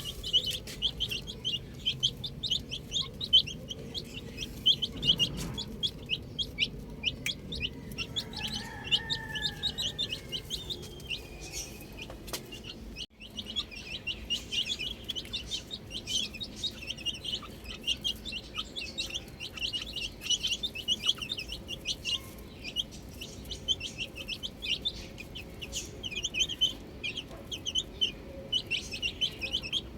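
A brood of baby chicks peeping nonstop: many short, high peeps overlapping, with a momentary break about halfway through.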